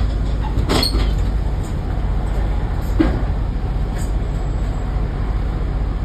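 Diesel engine of an Alexander Dennis Enviro 400 double-deck bus running, heard from inside the passenger saloon as a steady low rumble. Two sharp knocks come through, about one and three seconds in.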